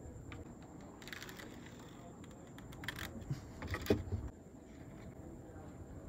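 Short clicks and rattles from handling a plastic contour gauge, its row of pins clattering as it is moved against the wooden plank, in a few small clusters about one, three and four seconds in.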